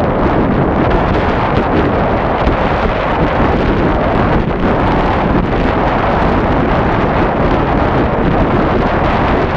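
Heavy wind noise buffeting the microphone, loud and steady with no let-up.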